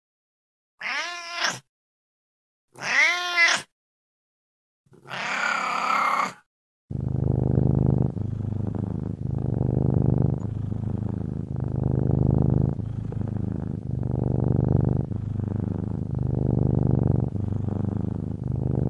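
A cat meowing three times, each call rising and falling in pitch, then from about seven seconds in a cat purring: a continuous low rumble that swells and eases with each breath, about once a second.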